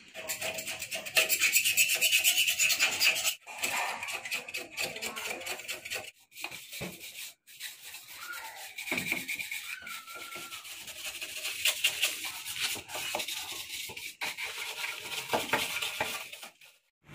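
A flat scraper rubbing and scraping old paint, softened by paint remover, off the steel frame of a Honda EX5 motorcycle in quick repeated strokes. There are a few abrupt gaps.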